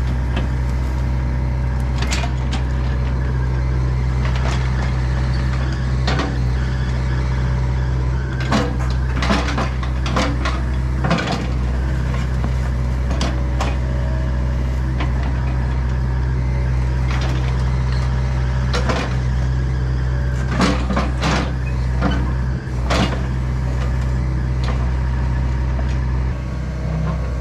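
John Deere 85G excavator's diesel engine running steadily under load as it digs, with repeated clanks and knocks from the bucket and machine, coming in clusters about 8 to 11 seconds and 20 to 23 seconds in.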